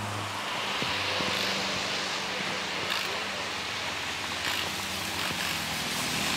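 Steady outdoor hiss with the low, even hum of heavy recovery vehicles' engines, a wheel loader and a tow truck, running at the crash scene.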